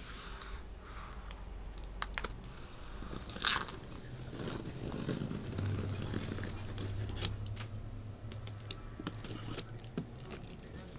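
Utility knife blade slitting clear packing tape along the seam of a cardboard box: a scratchy scraping with crackles and small clicks as the tape parts, and a few sharper clicks.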